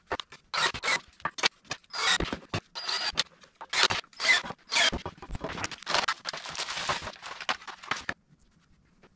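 Cordless drill-driver running in short repeated bursts, driving screws into a wooden frame, with a thin high whine in some bursts; it stops about eight seconds in.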